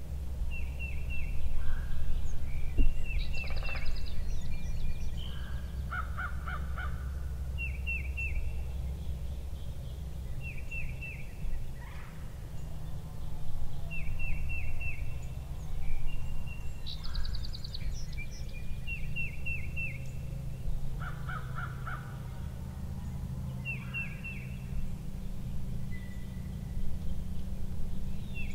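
Wild turkey gobbler gobbling several times, short rattling calls a few seconds apart. A songbird repeats a short high phrase of quick notes every couple of seconds, over a steady low rumble.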